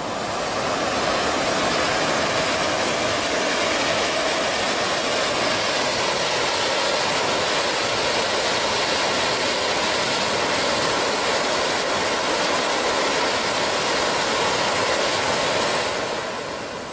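Miniature gas-turbine jet engine in a radio-controlled model jet, run up on the ground. A loud, steady jet rush with a faint high turbine whine rises over the first couple of seconds, holds at high power, then winds down near the end.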